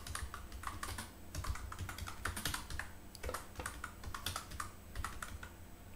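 Typing on a computer keyboard: a run of quick, irregularly spaced key clicks as a file name is typed.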